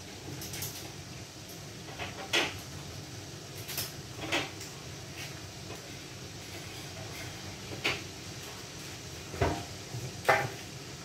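Kitchen handling sounds: six or so sharp knocks and clacks of cupboard doors and pots or utensils, the loudest near the start and near the end, over a steady low hum.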